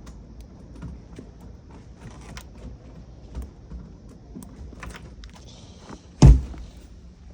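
Footsteps in snow: light, irregular clicks and crunches, then one loud thump about six seconds in.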